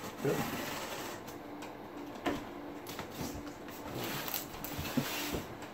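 Box cutter slicing along the packing tape on a cardboard box in several scratchy strokes, with a few light knocks, then the box being shifted across a wooden table.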